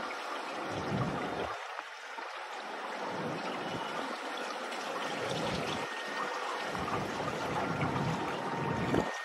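Wind buffeting the microphone: a steady rushing noise with irregular low gusts that swell and fade every second or so.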